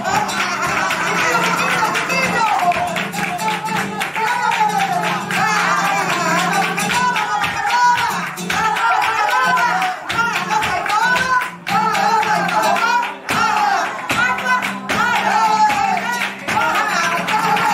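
Live flamenco: a woman's voice singing a wavering, heavily ornamented line over guitar, with rhythmic hand-clapping (palmas) throughout.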